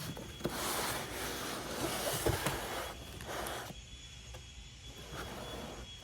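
The contents of a cardboard box being slid out, scraping and rustling of cardboard and packaging. It goes for about the first three and a half seconds, with a few light knocks, then drops away.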